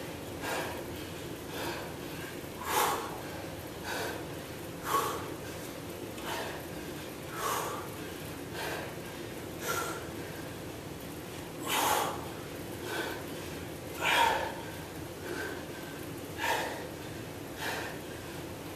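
A man breathing hard from exertion: a short, forceful exhale about once a second, a few louder than the rest. He is tiring partway through a set of overhead dumbbell triceps extensions.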